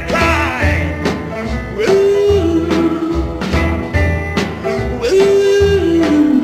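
Electric blues song: a driving bass riff pulsing about once a second under a singer, with long held notes.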